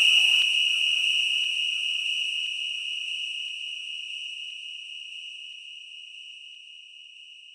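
A single steady high-pitched electronic tone with fainter overtones, a DJ sound effect, slowly fading away.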